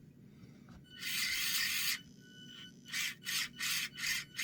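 Axial SCX24 micro crawler's drivetrain whirring under throttle: one long run about a second in, then a series of short quick blips. It has a gritty edge from binding in the drivetrain, which the owner puts down to something over-tightened or the suspension being maxed out.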